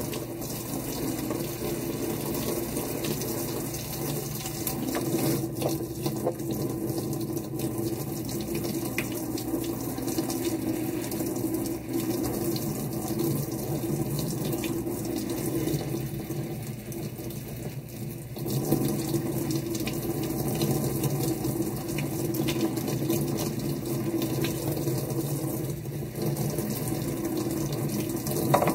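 Kitchen faucet sprayer running water through a pleated cone air filter and splashing into the sink, rinsing dish soap out of the filter.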